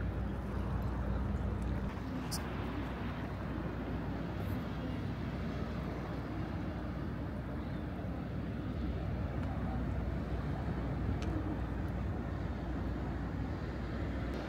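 Steady outdoor street noise of traffic, with faint chatter of passers-by.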